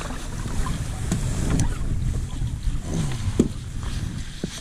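Wind buffeting the microphone on a kayak, with several sharp knocks and clatters of gear as a landing net is handled on board.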